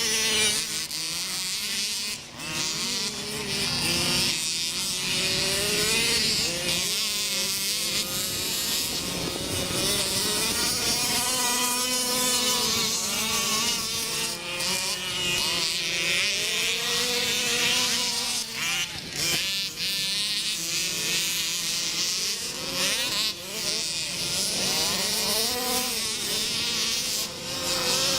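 Engines of several off-road buggies racing around a dirt track. Their pitch keeps rising and falling as they rev up and ease off, the engines overlapping one another.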